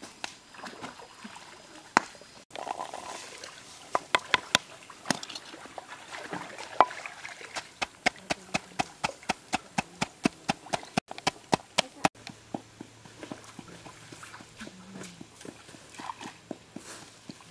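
Wooden pestle pounding red chilies, garlic and salt in a mortar: quick, even knocks about three to four a second through the middle stretch, with a few scattered single knocks before them.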